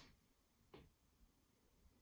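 Near silence: room tone, with one faint soft tap a little under a second in, from handling raw chicken pieces on a plate.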